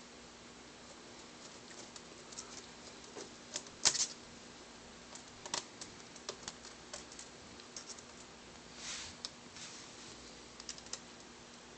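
Fine-point Phillips screwdriver working tiny screws out of a laptop LCD frame: sparse, irregular light clicks and taps of metal on screw and plastic, the sharpest about four seconds in.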